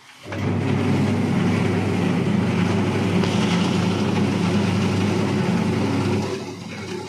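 Electric seed-treating drum switching on a moment in: a steady motor hum with sesame seeds rustling and tumbling inside the rotating stainless steel drum as they are coated with seed-treatment liquid. The sound drops somewhat near the end.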